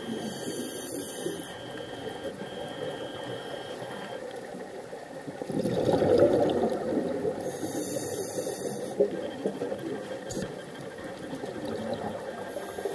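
Scuba diver breathing through a regulator underwater: hissing inhales near the start and in the second half, and a louder burble of exhaled bubbles about halfway through, over a steady wash of water noise.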